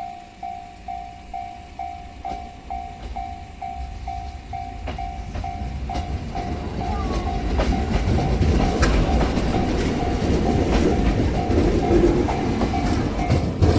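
Level-crossing warning bell dinging about twice a second, while a train rolls up and passes over the crossing from about six seconds in. It grows louder, its wheels clacking over the rail joints.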